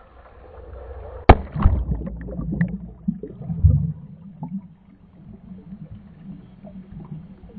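A camera plunging into a pool with a sharp splash about a second in, then underwater gurgling with scattered small bubble clicks.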